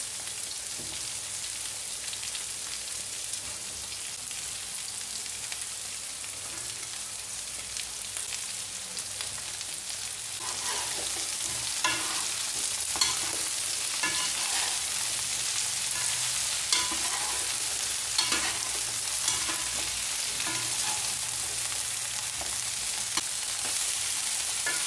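Mixed vegetables sizzling in hot oil in a nonstick wok. About ten seconds in the sizzle grows louder and a wooden spatula and a slotted metal turner scrape and knock against the pan as the vegetables are stir-fried.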